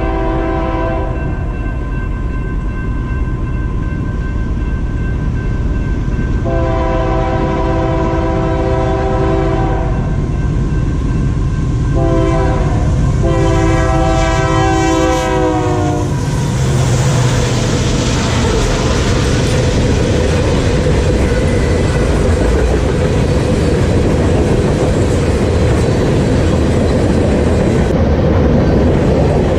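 Diesel freight locomotive's air horn sounding the grade-crossing signal: the end of one long blast, then a long, a short and a final long that drops in pitch as the locomotive passes. The engine and a long train of loaded covered hopper cars then rumble steadily past at speed.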